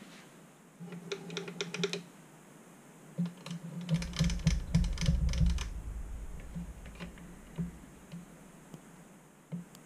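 A Proxxon mini milling machine is being adjusted by hand, giving bursts of rapid light metallic clicking. The first burst comes about a second in. A longer, denser burst runs from about three to six seconds with a low rumble under it, and a few scattered single clicks follow.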